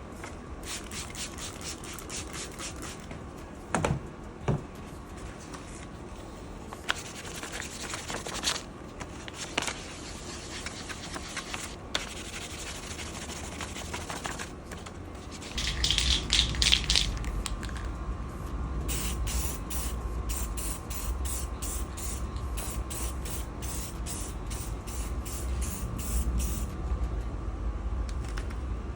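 Mask surface being wet sanded with 1500-grit sandpaper, rhythmic rubbing strokes. About halfway through a low steady rumble starts and clear coat is sprayed on in a hiss, then in a string of short strokes.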